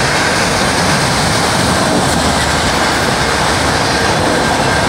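Freight train of autorack cars rolling past at close range: a steady, loud rolling noise of steel wheels on the rails.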